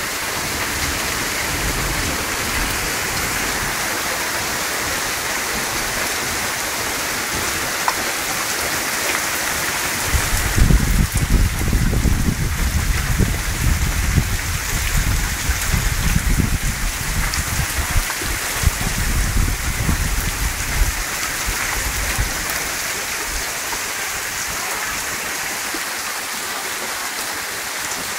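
Steady rain falling and pattering on surfaces. From about ten seconds in to about twenty seconds in, an uneven low rumble rises under it and then fades.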